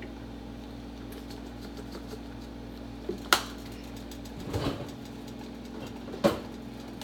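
Steady low hum of a kitchen appliance, with two sharp clicks, about three seconds in and again about six seconds in, and a short rustle between them, as containers are handled and set down.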